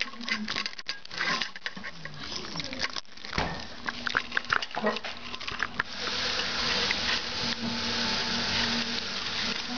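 Two small dogs eating dry kibble from stainless steel bowls: many quick clicks and crunches of chewing and of kibble and bowls knocking, then from about six seconds in a steadier hiss of noise.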